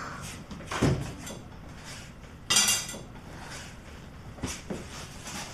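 A dull thud about a second in, then a bright metallic clink and jingle of small metal objects set down. A few light knocks follow near the end.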